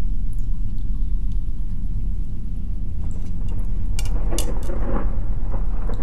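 Thunderstorm ambience: a steady deep rumble, with a thunderclap that swells in about three seconds in and crackles sharply around four to five seconds before rolling off.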